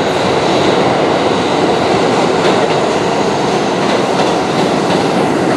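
Subway train running, heard from inside the car: a loud, steady rumble with a few faint clicks.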